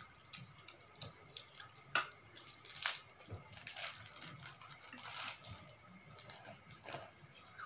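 Wet eating sounds: instant noodles being slurped and chewed, heard as scattered short smacks and clicks a second or so apart.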